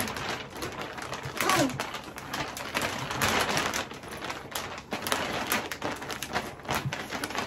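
Large clear plastic vacuum storage bag crinkling and rustling as it is unfolded, shaken open and spread out by hand, with irregular sharp crackles throughout.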